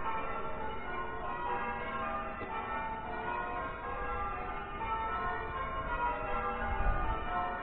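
Church bells ringing, several bells struck in quick succession so their tones overlap and fade, with a low rumble near the end.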